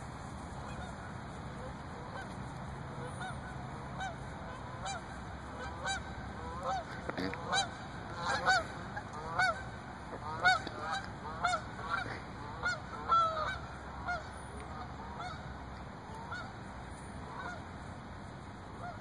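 A flock of birds calling: many short calls, each rising and then falling in pitch, coming in quick succession. They grow louder and denser toward the middle, then thin out.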